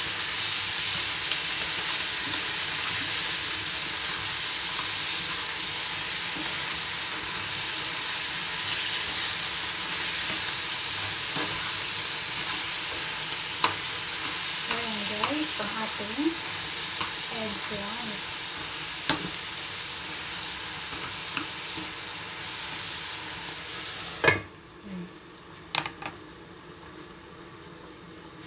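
Eggplant frying in hot oil in a skillet, sizzling steadily, with scattered clinks of a utensil stirring against the pan. Near the end a metal lid clanks down onto the pan, and the sizzle drops to a much quieter, muffled hiss.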